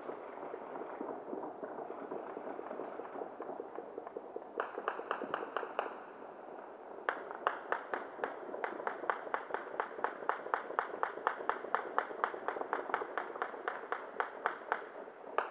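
Distant New Year's celebration bangs: a continuous crackle at first, then a short run of sharp pops about four and a half seconds in, and from about seven seconds a long, rapid, even run of sharp pops, about five a second, stopping near the end.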